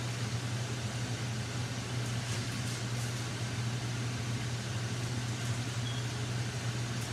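Kitchen range hood fan running steadily: a constant low hum under an even rush of air, with a few faint high crackles.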